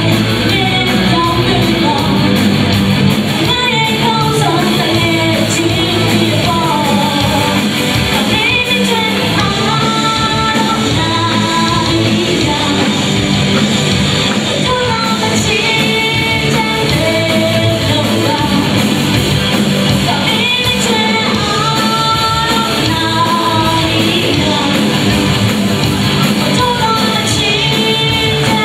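A live rock band playing, with a woman singing the lead vocal through the PA, backed by drum kit, electric guitar, bass and keyboard.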